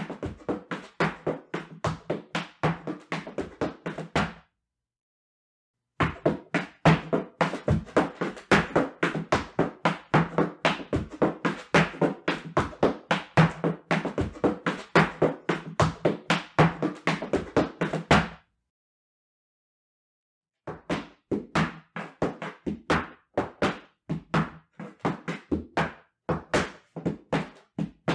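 Heeled dance boots striking a wooden platform in rapid zapateado footwork, several sharp stamps and taps a second. The footwork stops dead into silence twice, for a second or two each time.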